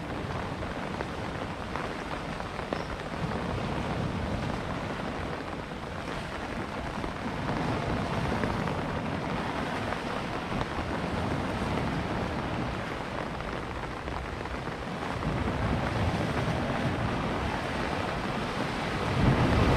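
Wind rushing across the microphone over sea waves washing against a rock breakwater: a steady rushing noise that swells and eases now and then.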